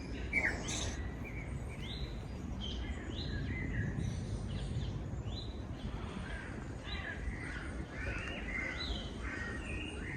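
Wild birds singing in woodland: many short chirps and rising notes overlapping throughout, over a steady low background noise.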